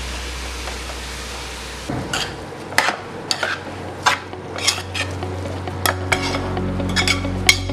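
Metal spoon stirring grated cabbage in a stainless-steel pot, clinking and scraping against the sides in quick repeated strokes from about two seconds in, over a steady sizzle of the cabbage frying in oil.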